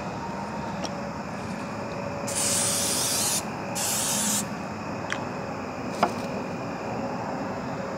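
Aerosol can of Pam cooking spray hissing in two short bursts, the first about a second long starting a little over two seconds in, the second shorter just after it. A single sharp click comes about six seconds in, over a steady hum of distant interstate traffic.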